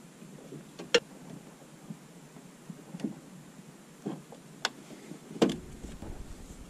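Handling noise: a few scattered clicks and knocks, two sharper than the rest, as hands work parts inside the opening of the van's dash.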